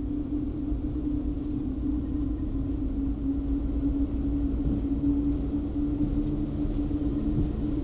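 Deep, steady rumble with a held low drone tone on top, slowly swelling in level.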